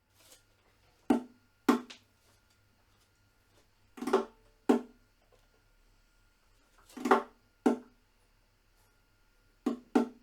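Sparse percussive music: short struck notes that die away quickly, coming in pairs about half a second apart, a new pair roughly every three seconds, over a faint steady high tone.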